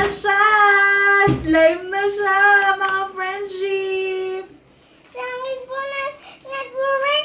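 A high, child-like voice singing a song, holding one long note for the first few seconds, then after a brief pause singing shorter phrases.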